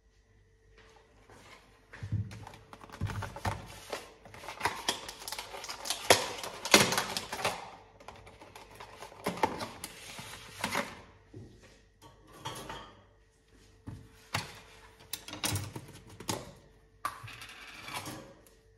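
Food containers being set down on a stone kitchen countertop and a plastic strawberry punnet being handled and opened: an irregular string of knocks, clatters and plastic crinkling that starts about two seconds in.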